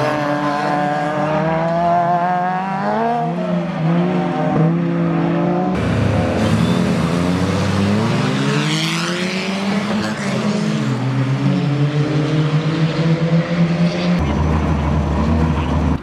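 Ford Fiesta rallycross cars' engines revving hard, their pitch climbing and dropping with gear changes. After about six seconds several engines rev together with crossing pitches, as on a start grid, and near the end they settle to a steadier low note.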